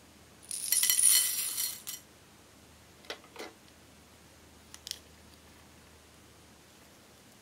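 Small clear beads tipped from a scoop into a glass bowl, clinking together in a quick cascade for about a second and a half. Two soft knocks and a couple of light clicks follow.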